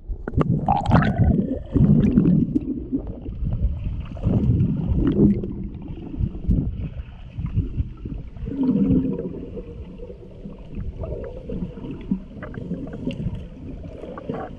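Underwater sound picked up by a GoPro camera in its waterproof housing during a snorkel dive: muffled, irregular low rumbling and gurgling of water and air bubbles, with scattered small clicks.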